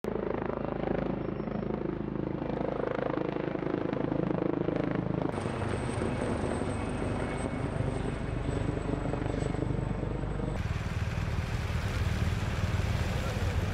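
Steady vehicle engine noise, with a low hum whose character changes abruptly about five seconds and again about ten seconds in.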